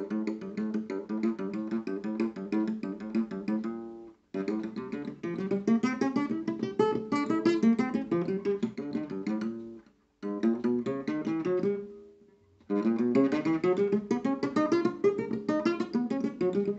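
Classical guitar played in fast, repetitive runs of picked single notes, stopping briefly about four seconds in, around ten seconds in, and again around twelve seconds in before carrying on.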